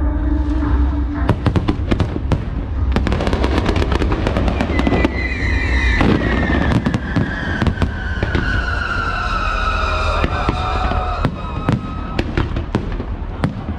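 Fireworks display: a dense run of bangs and crackling bursts over a steady low rumble, with music playing along. About five seconds in, a long tone slides slowly down in pitch for several seconds.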